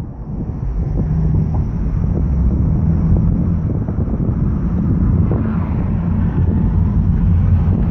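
Car driving at highway speed, heard from inside: a steady low road and engine rumble with wind rushing over the microphone, swelling slightly in the first second or two.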